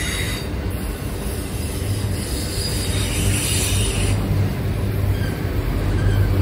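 Loaded multilevel autorack freight cars rolling past close by: a steady rumble of steel wheels on rail, with a faint high wheel squeal that dies away about half a second in.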